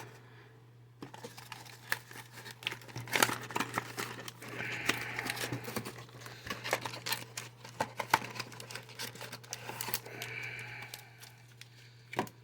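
A Yu-Gi-Oh mystery box being opened by hand: packaging crinkling and tearing, with scattered clicks and rustles as it is pulled apart.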